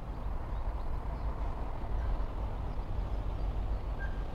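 Volkswagen Beetle Cabriolet's electric fabric soft top folding down: a steady low mechanical hum.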